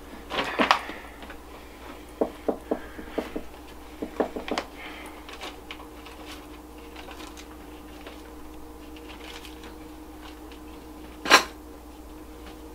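Small plastic clicks of a flip phone's keypad buttons being pressed, in quick runs of a few presses and then more sparsely, with one louder, sharper click near the end. A faint steady hum lies underneath.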